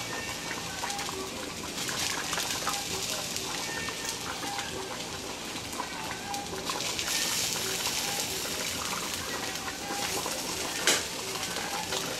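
Steady watery hiss of liquid bubbling in a cooking pot on the stove, growing louder for a few seconds past the middle, with one sharp knock just before the end.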